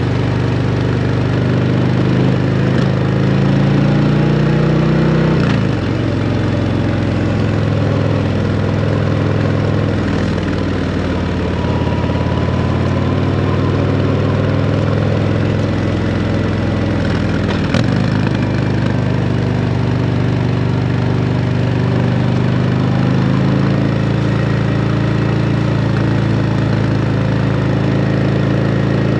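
2024 Harley-Davidson CVO Road Glide ST's Milwaukee-Eight 121 V-twin running through a Screaming Eagle exhaust while ridden. The engine note climbs over the first few seconds and falls sharply about five seconds in. It dips again with a short click near eighteen seconds, then climbs and holds.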